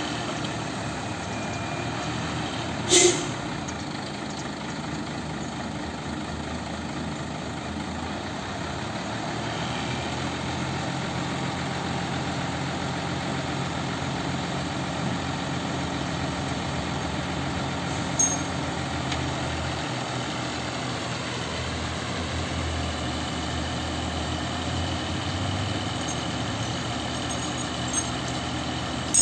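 Hino FM 260 TI truck's six-cylinder turbo diesel engine idling steadily while the loader crane is worked, its low note growing stronger past the middle. A loud, sharp sound cuts through once about three seconds in, and a smaller click comes a little past halfway.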